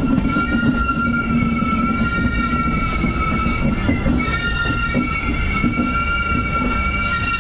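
Indian Railways passenger coach rolling along the track, heard from the coach door: a continuous rumble of wheels on rails with a steady high-pitched squeal over it.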